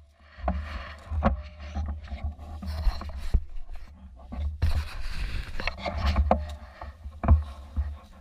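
Handling and movement noise from a camera mounted on an airsoft rifle: an uneven low rumble with rustling and scattered sharp knocks as the player moves.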